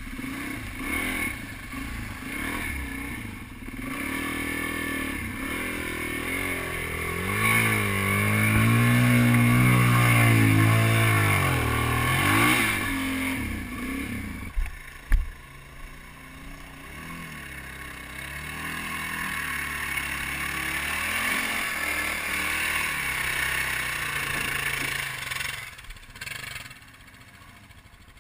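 Dirt bike engine revving and running as the bike rides a rough trail, its pitch rising and falling with the throttle, loudest in the first half. A sharp knock comes about halfway through, and the engine sound drops away near the end.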